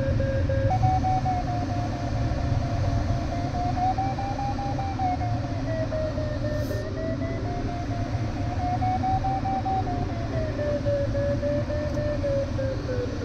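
Airflow rushing over an LS7-WL glider's cockpit canopy in flight, with an electronic variometer tone that wavers slowly up and down in pitch, following the changing climb in a thermal.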